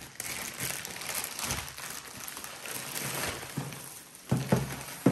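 Plastic poly mailer bag rustling and crinkling as a plastic-wrapped item is pulled out of it, with a few knocks near the end.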